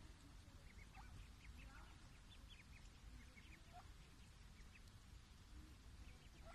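Mallard ducklings peeping faintly in short, high notes, many scattered calls, with a few lower duck calls mixed in.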